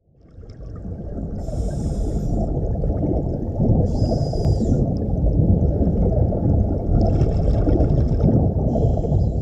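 Underwater ambience: a deep, muffled water rumble that fades in over the first couple of seconds. Four short hissing bursts of bubbles rise over it, about two to three seconds apart.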